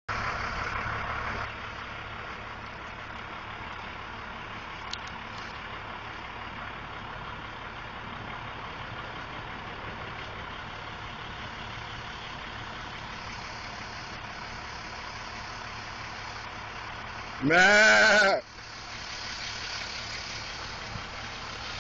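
A steady low hum and hiss. Then, about 17 seconds in, one loud drawn-out "maaa" call about a second long that rises and falls in pitch: a man mooing to call the cows.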